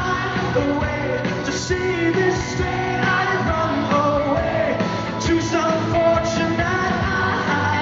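Live rock song: a male singer's voice over instrumental accompaniment.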